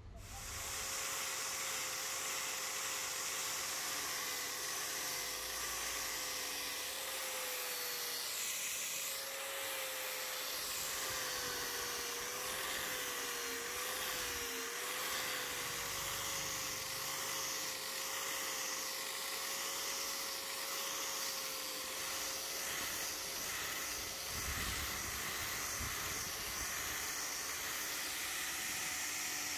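Electric random orbital sander running steadily, sanding a padauk wood hatchet handle; its motor whine wavers in pitch for a few seconds near the middle.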